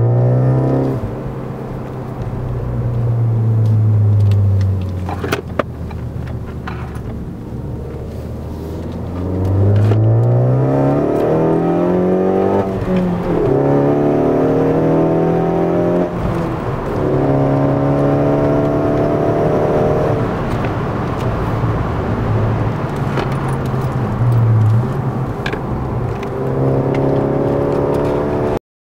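Ford Focus ST mk3's 2.0 EcoBoost turbocharged four-cylinder running through a non-resonated turbo-back exhaust, heard from inside the cabin while driving. The engine note falls and drones low at first, then climbs in pitch under acceleration with sudden drops at upshifts in the middle, and settles into a steady cruising drone toward the end.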